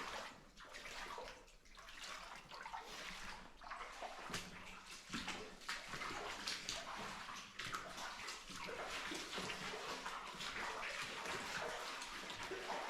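Footsteps splashing and scuffing through shallow water on the tunnel floor, an irregular run of steps.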